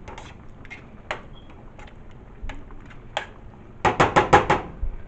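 Light kitchen clatter of utensils and pots: scattered sharp clicks, then a quick run of about six knocks about four seconds in.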